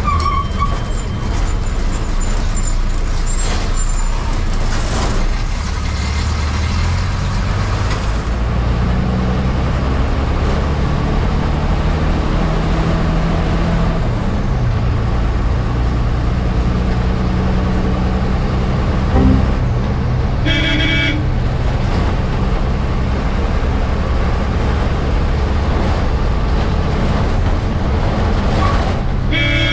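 MSRTC bus engine running on the road, its note rising and shifting a few times. A vehicle horn honks briefly about two-thirds of the way through and again at the very end.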